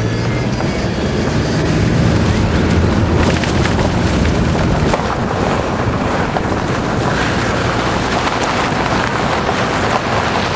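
Steady wind noise on the microphone of a moving off-road vehicle, with a low engine hum underneath that is stronger in the first half.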